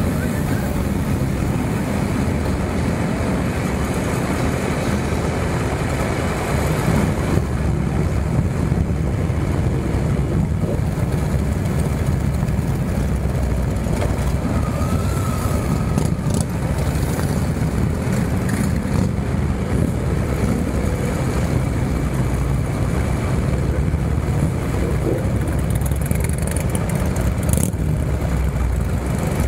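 Several motorcycles running at low speed in a slow, tightly packed line of bikes, making a steady low engine sound, heard from one of the moving motorcycles.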